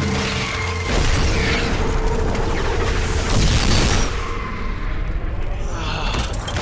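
Cartoon explosion sound effects: a rumbling blast that swells about a second in, is loudest around three and a half seconds, then dies away, with music playing underneath.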